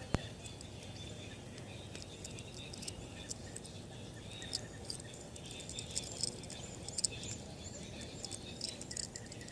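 Outdoor pond-side ambience with small birds chirping: scattered short, high chirps over a low steady background. A sharp click sounds just after the start and another near the end.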